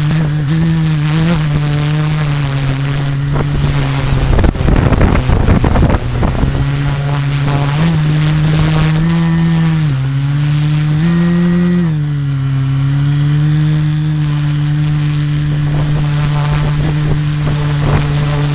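Multirotor drone with LD Power MT4010 475 KV motors and 13-inch carbon propellers hovering: a steady low buzz whose pitch steps up and down several times between about eight and twelve seconds in, as the motors speed up and slow down. A gust of wind hits the microphone about four to six seconds in.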